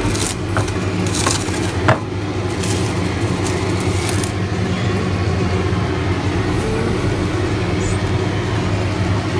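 A steady mechanical hum, like a motor or fan running. Over it come a few light clinks and taps in the first two seconds as a glass bowl is handled.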